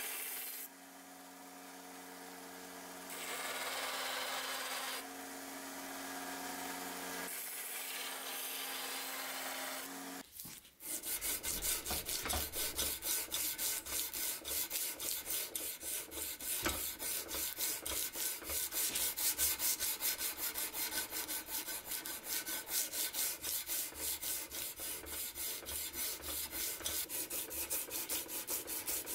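A belt grinder runs with a steady hum while a steel knife blade is pressed against the belt and lifted off, so the grinding noise swells and drops. About ten seconds in, this gives way to hand-sanding the blade with sandpaper: quick, even back-and-forth rubbing strokes, about four a second.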